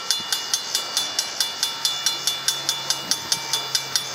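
Railroad crossing bell ringing rapidly, about five strikes a second, while the crossing gate arm lowers. A low steady hum joins about halfway through.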